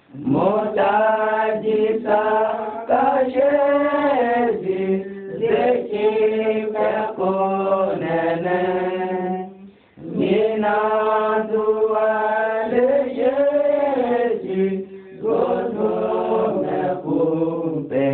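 Unaccompanied chanted singing in two long phrases, with a brief break about ten seconds in.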